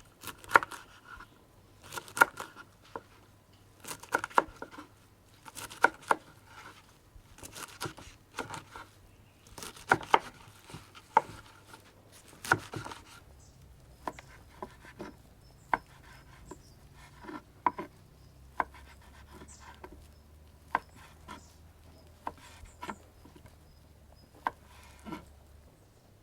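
Knife chopping food on a cutting board. Sharp strokes come in twos and threes about every two seconds in the first half, then lighter single strokes about once a second.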